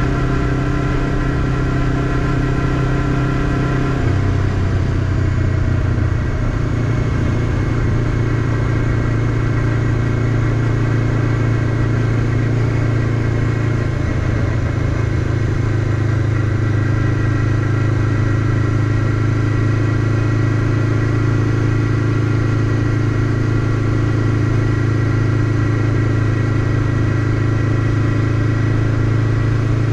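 Honda CBF500's parallel-twin engine running steadily while the motorcycle is ridden along. Its note drops about four seconds in, shifts again around fourteen seconds, then holds steady.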